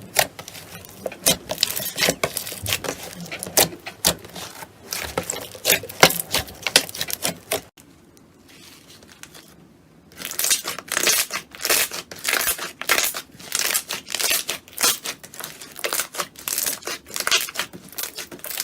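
Slime being squeezed and pressed by hand, giving dense irregular crackling and popping clicks. It goes quiet for about two seconds around eight seconds in, then the crackling starts again.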